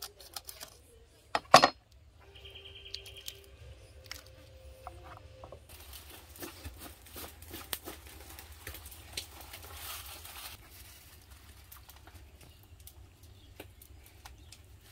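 A cleaver chopping through a raw chicken onto a plastic cutting board, with a few sharp chops, the loudest about a second and a half in. Later, dry banana leaves and aluminium foil rustle and crinkle as they are handled for several seconds.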